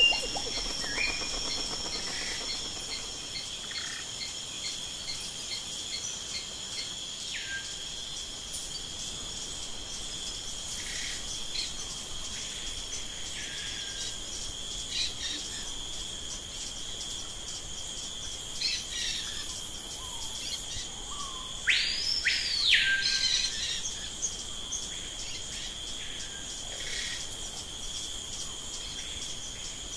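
Outdoor nature sound: a steady, high insect trill runs throughout, with short bird chirps scattered over it. About 22 seconds in, the loudest moment is a pair of bird whistles that sweep up and fall back.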